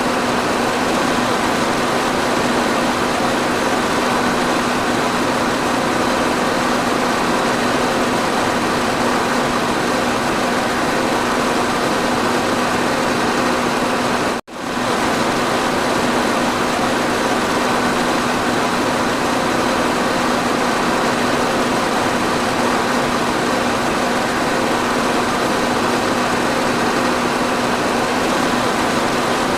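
Electric fan running steadily: a constant airy whoosh over a low, even motor hum, with a momentary dropout about halfway through.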